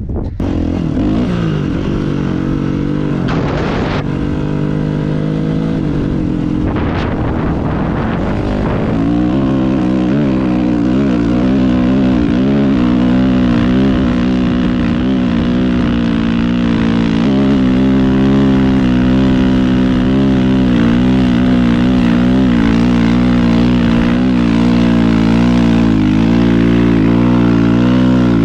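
Dirt bike engine running hard under way. It revs up and drops in pitch twice in the first several seconds, as on upshifts, then holds a fairly steady, slightly wavering pitch for the rest.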